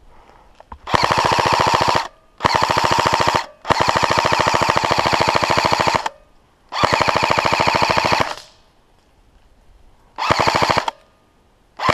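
Airsoft rifle firing full-auto bursts: five bursts in quick succession, the longest a bit over two seconds, and a sixth starting near the end. Each burst is a rapid, even rattle of shots.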